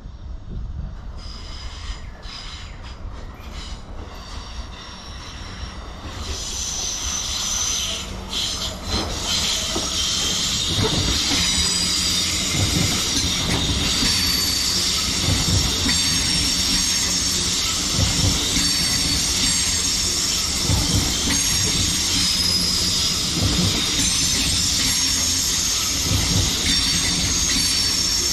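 A train approaching and running past close by, its wheels squealing with high whines over a steady rumble and a repeated clatter of wheels over the rail joints. It starts faint and grows loud about six seconds in.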